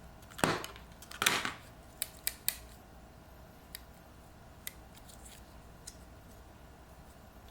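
DeWalt MT16 stainless steel multi-tool being worked by hand, its spring-loaded pliers swung and snapped into position: two scraping metal snaps in the first second and a half, then three quick sharp clicks, with a few fainter single clicks afterwards.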